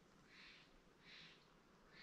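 Faint footsteps crunching on a hiking trail at an even walking pace, about one step every three-quarters of a second.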